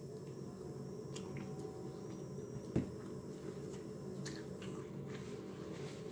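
Quiet chewing and wet mouth clicks from someone eating baked chicken and fried rice, with one short low thump about three seconds in. A steady low hum runs underneath.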